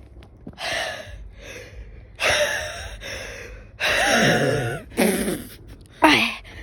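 A person's breathy gasps and squeals, about five short outbursts, the last one sliding down in pitch.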